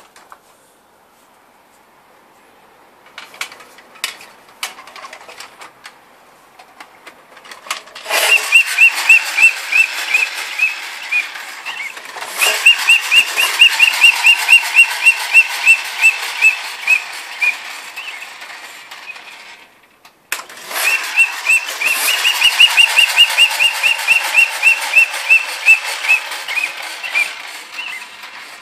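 The friction flywheel motor of a vintage 1960s Daiya 'Tiger' tin toy train whirring, with its built-in whistle giving a high chirping hoot about five times a second. This comes in three runs, starting about eight, twelve and twenty seconds in, and each run fades and slows as the flywheel spins down. Light clicks and ticks come before the first run.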